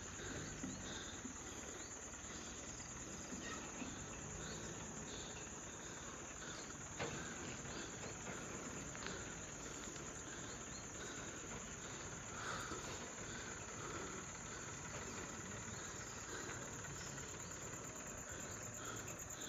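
A steady, high-pitched chorus of insects trilling continuously, with a couple of faint knocks.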